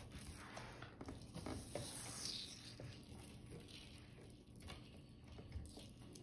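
Faint clinking and rustling of metal necklace chains and beads being handled on a plastic-covered tabletop, with scattered small clicks as a fine chain is picked up and its clasp fingered.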